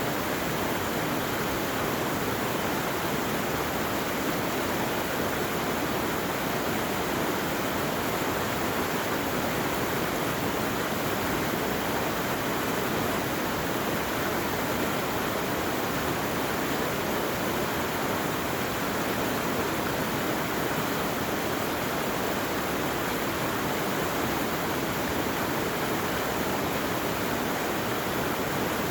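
Rushing water of a stream or cascade, a steady, even rush with no change in level.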